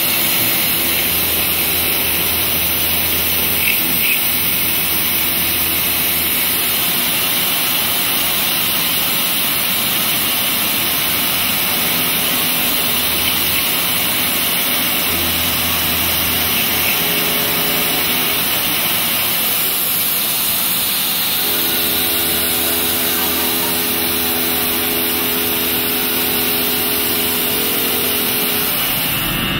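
Vertical milling machine cutting metal with an indexable-insert milling cutter: a loud, steady hissing machining noise carrying a few steady tones, which shift to a new set about two-thirds of the way through.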